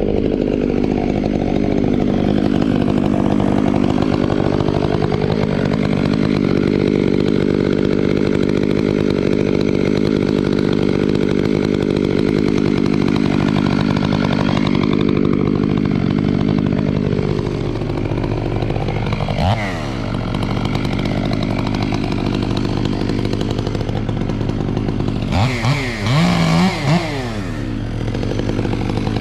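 Two-stroke chainsaw running hard for about the first fifteen seconds, its pitch sagging and recovering as if under load in a cut. It then drops back toward idle, with a quick throttle blip about two-thirds of the way in and a longer rev near the end.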